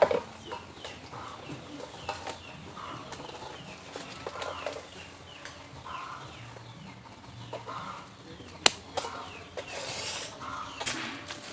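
Birds chirping over and over in short falling calls, several a second, with a lower call every second or so. One sharp crack about nine seconds in.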